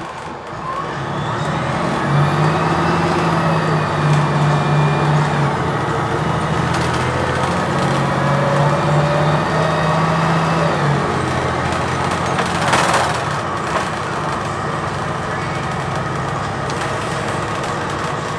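Cummins Westport ISL-G natural-gas straight-six of a Blue Bird TX4 CNG bus, heard from inside the bus under way. The engine note rises about two seconds in, holds under load, and falls back near eleven seconds. A short hiss of air comes about thirteen seconds in.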